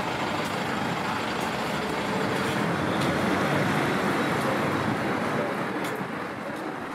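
Street traffic noise of cars driving past, growing louder in the middle and fading toward the end.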